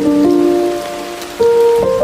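Soft instrumental music of held notes and chords, over a steady hiss of rain. The music thins out, then a new note comes in about one and a half seconds in.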